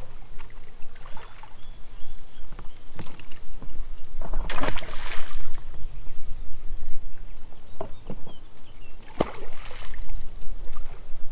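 Water splashing and sloshing in bursts as oars dip into a lake from an inflatable rowing boat, with a few knocks; two splashes stand out, about four and a half seconds apart.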